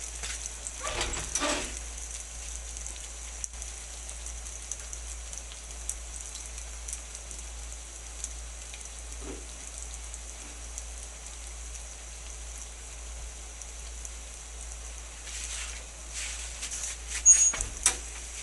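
White oyster mushroom tempura deep-frying in hot oil in a pan: a steady sizzle full of fine crackles, with a few louder clicks near the end.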